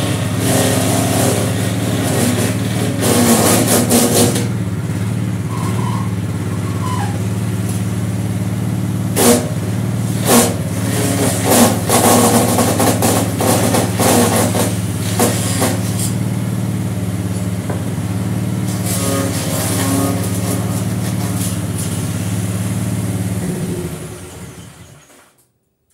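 Homemade mini tractor's engine running steadily above idle, driving a belt-driven branch chipper that grinds up branches as they are fed in: rough bursts of chipping and several sharp knocks as the blades cut the wood. About 23 seconds in the engine is shut off and the sound dies away.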